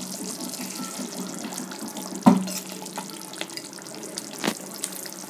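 Thick shark-fish curry bubbling in a pan, a steady wet burbling. A sharp knock comes a little over two seconds in, the loudest thing heard, and a fainter click follows near the end.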